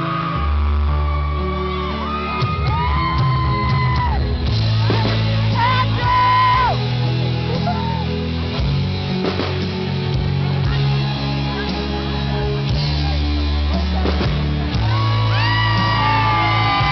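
Loud band music with a singing voice over a steady bass line, with shouts and whoops from the crowd.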